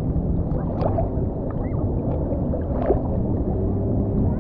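Sea water sloshing and churning around a camera held at the surface, a dull continuous wash with a few short splashes scattered through it.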